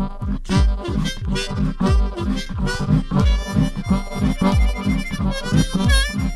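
Background music with a steady beat of about two low thumps a second and a reedy melody over it.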